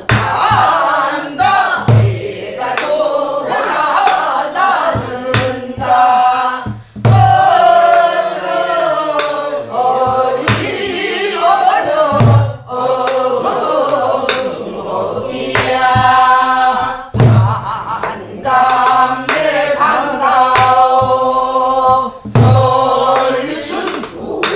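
A woman singing a Namdo (southwestern Korean) folk song in full voice, accompanying herself on a sori-buk barrel drum. Deep drum strokes fall about every two to three seconds, with sharper stick clicks on the drum between them.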